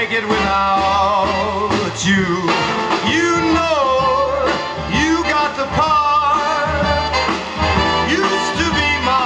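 Swing-style music playing through Dynaco A-35 loudspeakers whose crossover network components have just been replaced: a steady bass line under a wordless, bending melodic line.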